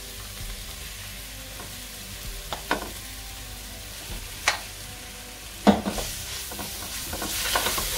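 A spatula stirring mashed potato into a vegetable filling in a metal pot over a faint, steady sizzle, with a few sharp knocks of the spatula against the pot and louder scraping near the end.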